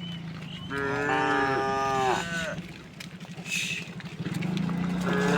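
Cattle mooing: one long moo starting about a second in, dropping in pitch as it ends, and another moo beginning near the end. A low steady drone runs underneath, with a short bird call midway.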